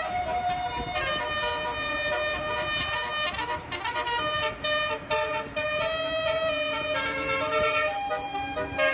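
Indonesian bus "telolet" horn: a multi-tone horn playing a tune of held notes that step from pitch to pitch, over the low rumble of traffic.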